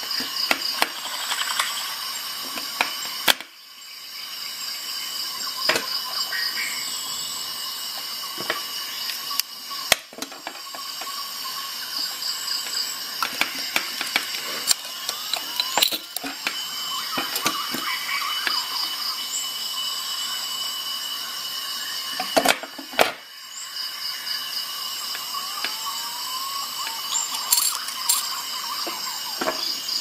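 Steel multi-tool bottle openers clicking and clinking against beer-bottle crown caps and a glass tabletop as caps are pried off, with sharp metallic clicks every few seconds and a few short squeaks. Under them runs a steady high-pitched hiss with faint pulsing.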